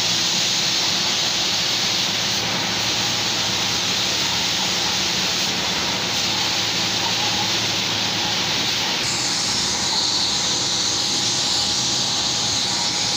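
Hand-held air spray gun spraying paint in a paint booth: a loud, steady hiss over a faint low hum, turning brighter about nine seconds in.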